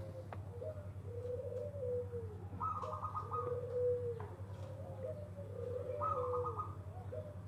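Zebra dove (perkutut) cooing over and over, a run of low arching coos about one a second, with a higher trilled phrase breaking in twice. A steady low hum runs underneath.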